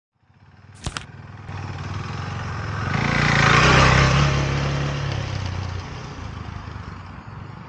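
Husqvarna Svartpilen 401 single-cylinder motorcycle engine running as the bike passes by. It grows louder to a peak about four seconds in, then slowly fades. A short sharp click comes about a second in.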